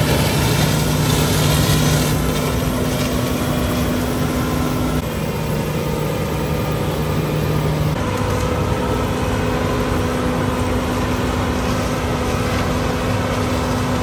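Claas Trion 740 combine harvester running while harvesting corn: a loud, steady engine drone and machinery hum, its tone shifting a couple of times.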